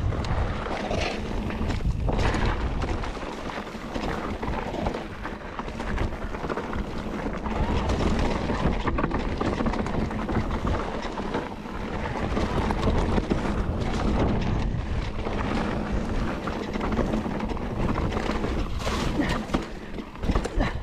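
Mountain bike riding over rough trail: a steady clatter of tyres, frame and chain over roots and stones, with wind rumbling on the microphone.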